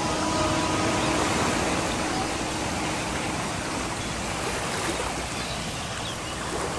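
Seawater rushing at the shore, a steady rushing noise without distinct wave breaks.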